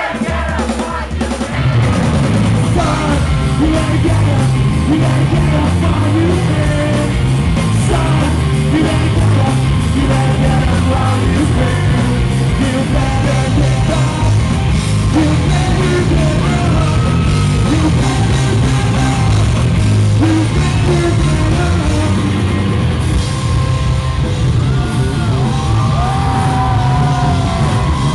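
A rock band playing live and loud, with the singer yelling and singing over electric guitar and drums. The full band comes in about a second and a half in.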